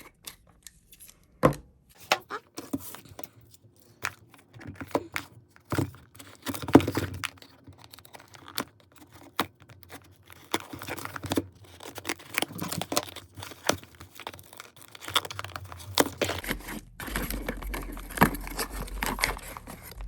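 Packaging being handled and opened: irregular crinkling, tearing and rustling with many small clicks, as nail-product packets and containers are unwrapped. A low steady hum joins near the end.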